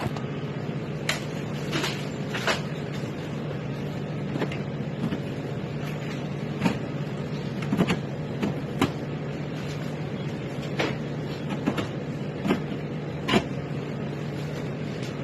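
Soda vending machine humming steadily, with about a dozen irregular sharp clunks and clicks as cans are handled and loaded into it.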